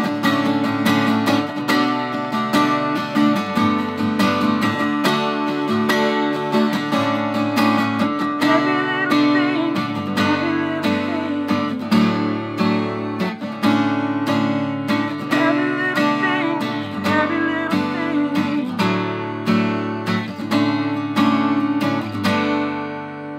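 Acoustic guitar strummed in a steady rhythm, chords ringing on between strokes; the playing dies away near the end.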